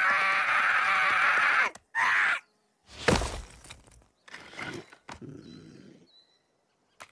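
Sound effects from an animated Baby Groot: a loud, strained cry with wavering pitch, then a sharp woody thud about three seconds in as the little tree creature topples to the ground. Softer knocks and scrapes follow.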